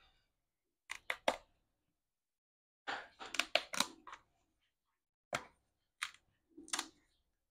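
Utility knife slicing through cardboard in short, crisp strokes, coming in small bursts with pauses between.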